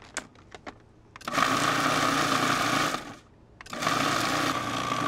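Electric food processor pulsed twice, each run about two seconds of steady motor whirring, blending chimichurri herbs, garlic and vinegar. A few light clicks come just before the first run.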